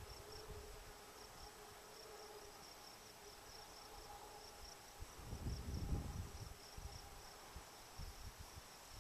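Faint open-field ambience: insects chirping in a steady, rapid, high-pitched pulse, over a faint steady hum. Low rumbles of wind on the microphone swell a little past halfway through.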